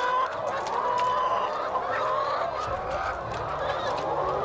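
A large flock of laying hens clucking and calling together, many voices overlapping in a steady chorus.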